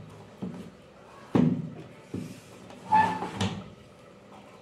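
Several knocks and clunks as a home theater amplifier board with a metal heatsink is handled and its wires are connected on a workbench. The loudest come about a second in and about three seconds in, the later one with a brief metallic ring.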